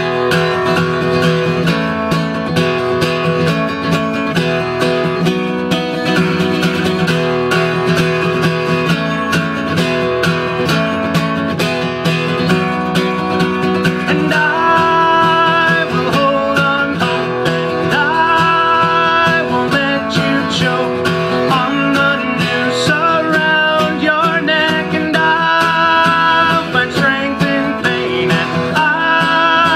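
Instrumental folk-rock music with fast acoustic guitar strumming and no vocals. About halfway through, a brighter melody line comes in over the strumming.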